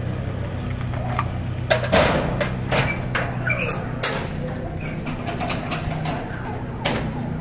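A pickup's engine idling with a steady hum, while the metal rear detainee cage of a police pickup is handled: several clanks and thuds from about two to four seconds in, the loudest around four seconds.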